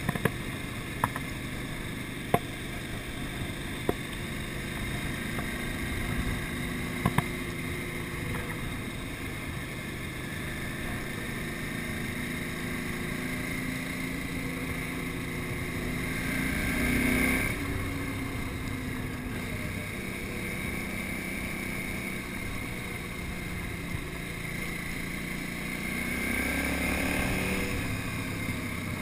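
KTM 950 Super Enduro's V-twin engine running steadily under way on a dirt road. It swells and rises in pitch twice, about midway and near the end, as the rider opens the throttle. A few sharp ticks come in the first several seconds.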